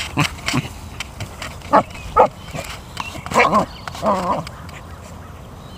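American Eskimo dog making play vocalizations: a few short calls in the first couple of seconds, then two longer, drawn-out calls a little after three and four seconds in.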